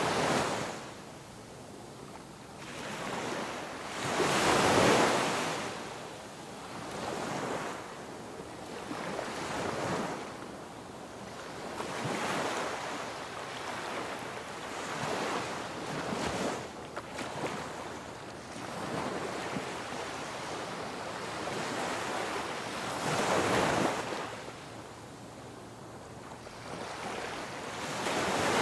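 Ocean waves breaking on a shore, rising and falling in slow surges every few seconds, with the biggest swells about five seconds in and near the end.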